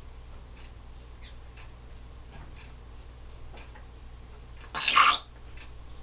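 A Timneh African grey parrot gives one short, loud, harsh breathy burst about five seconds in, after a few faint clicks.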